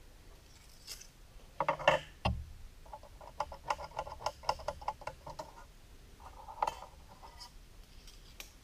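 A few sharp knocks of tools handled on a wooden slab, then a run of quick clicking as a steel tape measure blade is drawn out across it, with a shorter run of clicks a little later.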